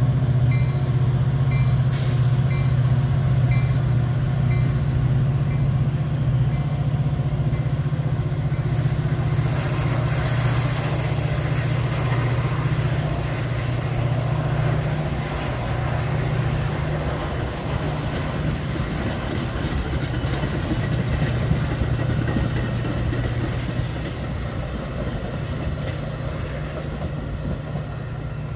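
Diesel train passing at close range: a steady low engine drone with rolling wheel-on-rail noise that swells partway through and slowly eases toward the end. A bell dings at an even pace, roughly one to two strikes a second, fading out in the first eight seconds.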